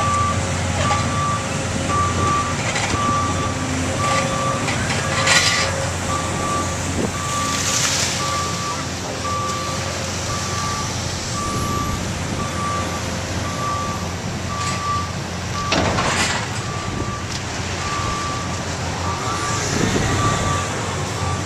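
Backup alarm on tracked construction machinery beeping steadily, evenly spaced single-tone beeps a bit under once a second, over the machine's diesel engine running, with a few short clatters.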